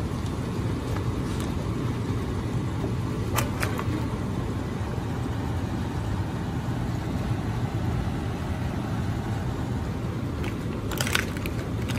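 A steady low hum with an even rushing noise, like a fan or motor running, and a few light clicks: one a few seconds in and a couple near the end.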